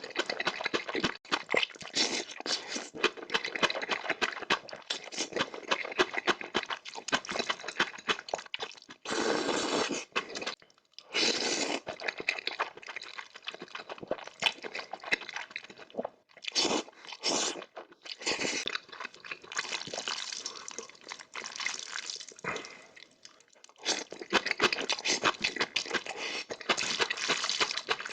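A person eating spicy noodles close to the microphone: wet slurping and chewing in long runs, with brief pauses between mouthfuls.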